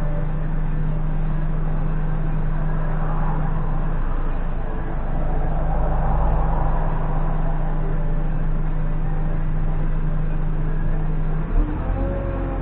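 JCB 3CX backhoe loader's diesel engine running steadily with a constant low hum, which changes near the end after a brief knock.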